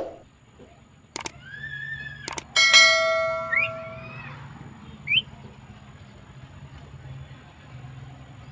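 Javan myna calling with a drawn-out whistle and short rising whistles. Two sharp clicks sound early on. A louder ringing bell-like ding comes about two and a half seconds in and fades over a second or so.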